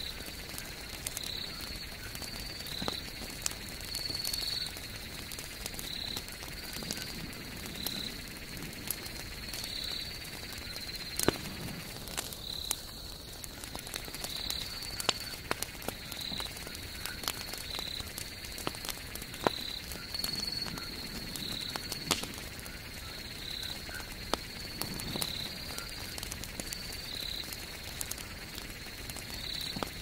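Wood campfire crackling, with scattered sharp pops, the loudest about eleven seconds in. Behind it, a small animal's short high-pitched call repeats about once a second.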